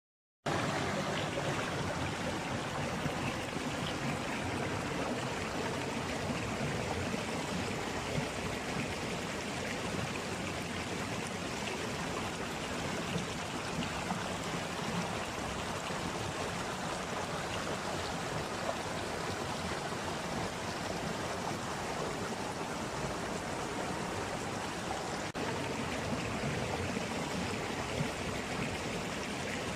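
Stream water running and splashing over rocks, a steady babbling rush, with one brief dip about 25 seconds in.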